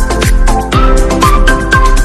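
Electronic dance music with a kick drum on every beat, about two a second, under a synth melody.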